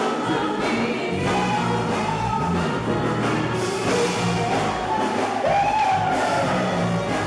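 Live gospel choir singing with band accompaniment, a solo voice's long held lines rising and falling over the choir.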